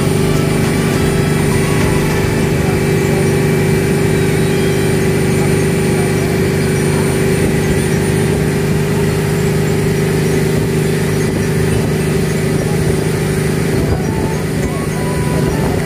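Motorboat engine running at a steady pitch under way, a continuous drone with a hiss of rushing water and wind over it.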